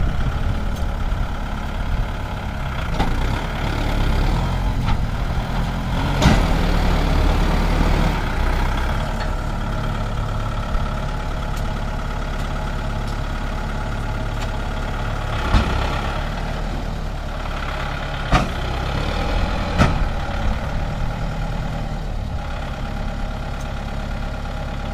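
Kubota MU5501 tractor's four-cylinder diesel engine running steadily under load while moving a loaded trolley, louder for a couple of seconds about six seconds in. A few sharp knocks sound over it.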